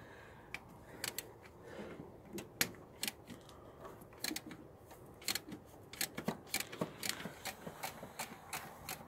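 Faint, scattered clicks and clinks of hand tools and metal parts as the alternator's mounting bolts are worked loose in the engine bay, irregular, a few taps a second at most.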